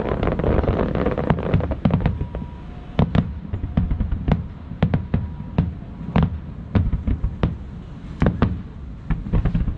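Aerial fireworks shells bursting over and over, a rapid irregular string of sharp bangs and crackles over a continuous low rumble.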